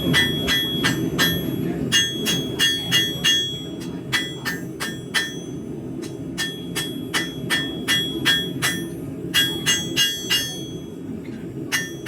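Hand hammer forging a hot high-carbon steel knife blade on an anvil: runs of ringing blows, about three a second, with short pauses between runs. A steady low rumble runs underneath.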